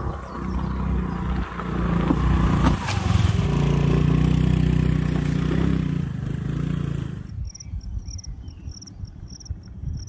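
Scooter engine running loud as it rides over rough ground, cutting off suddenly about seven seconds in. After that, a high-pitched insect chirp pulses a few times a second.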